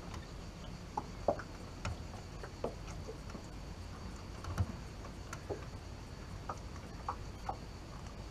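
Sparse light clicks and taps from handling fishing tackle on a boat deck, a dozen or so spread unevenly, over a low steady hum.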